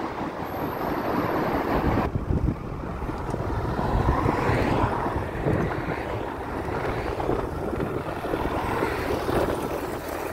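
Motor traffic noise in a road tunnel, cut off abruptly about two seconds in. After that comes wind noise on the microphone of a moving bicycle, rising and falling unevenly.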